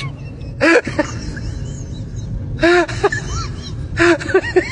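Short wordless vocal exclamations, each rising and falling in pitch, in three bursts, over a steady low background rumble.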